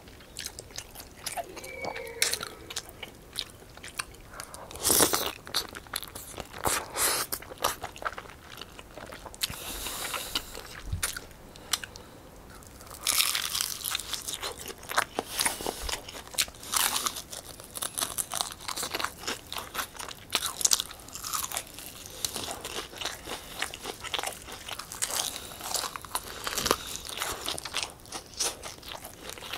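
Close-miked eating sounds: slurping and chewing soft glass noodles in spicy tteokbokki sauce, then, from about halfway through, a dense run of crisp crunching bites and chewing of honey-glazed fried chicken.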